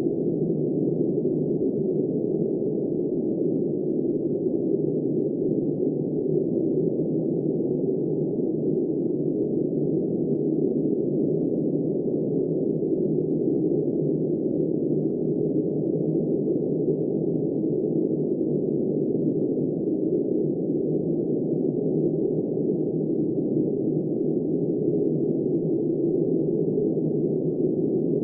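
Steady, muffled wind noise with no gusts, rises or separate events; no rain or thunder can be made out.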